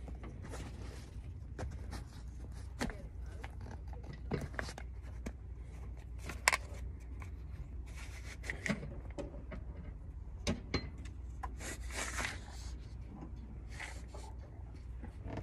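Clicks, taps and short scrapes of hands working a plastic chalk line reel and its line, over a steady low hum.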